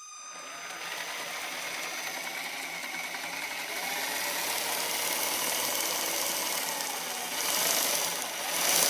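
Axial RC car's electric motor and drivetrain running under throttle to test newly fitted aluminium drive shafts: a steady mechanical whir that grows louder and swells twice near the end as the throttle is pushed. The drive shafts are judged to work, though the owner thinks they may need some grease.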